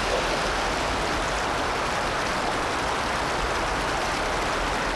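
Steady rush of white water pouring over a rock ledge into a plunge pool, a continuous even hiss of turbulent stream water.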